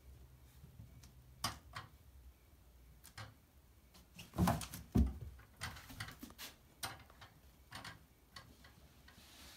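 Kittens scrambling and playing in a bathtub: scattered light taps and clicks of paws and claws on the tub. Two heavier thumps about four and a half and five seconds in.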